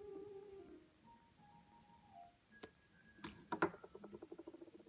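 Soft humming of a tune at the start. Then a few sharp clicks and a quick rattle of small ticks, the loudest about three and a half seconds in, as a hand screwdriver is set down on the wooden desk.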